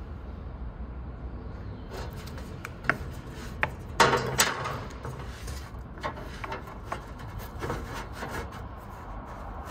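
Marker scratching short strokes along a small metal square on a cardboard template, with the sheet and square rubbing and knocking on a wooden workbench. The loudest clatter comes about four seconds in.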